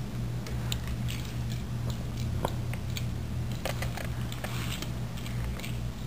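Small die-cast toy cars clicking and scraping as they are picked up and set down on a wooden floor: a scattering of light clicks, the sharpest about two and a half seconds in, over a steady low hum.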